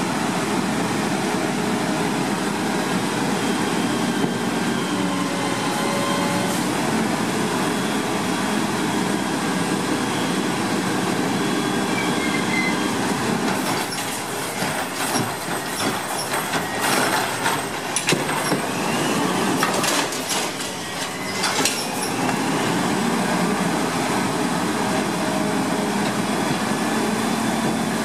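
Wayne Curbtender automated side-loader recycling truck running steadily, its hydraulics working the arm that holds a cart upturned over the hopper. From about halfway through there is a run of sharp clatters and knocks as the cart is tipped further and recyclables drop into the hopper. The steady running then resumes as the arm lowers.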